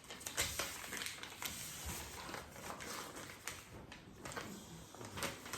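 A sheet of paper being folded and creased by hand, rustling with irregular crackles and light scrapes.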